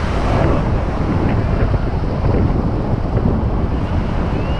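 Steady rush of whitewater rapids churning around an inflatable raft, with wind buffeting the action camera's microphone.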